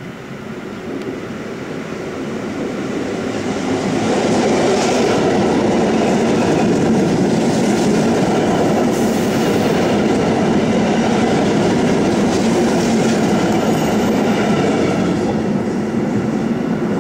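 An electric multiple unit approaches and runs past along the platform, with the rumble and clickety-clack of its wheels on the rails. The sound builds over the first few seconds, holds steady while the cars pass, and starts to fade near the end.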